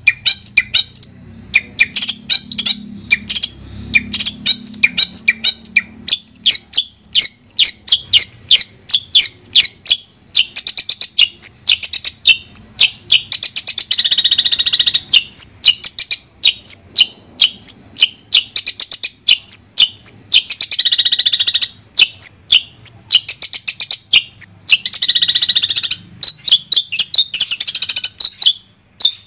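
Long-tailed shrike (cendet) singing: a fast, unbroken stream of high chattering notes, broken three times by a harsher rasping burst about a second long.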